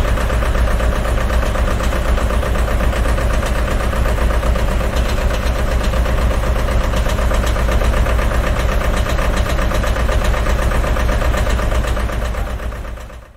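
Huina remote-control wheel loader running with a steady engine sound, which fades out over the last second or so.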